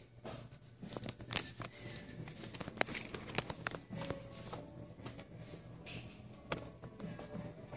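Irregular sharp clicks and rustling, the loudest about three seconds in: handling noise on a handheld phone's microphone.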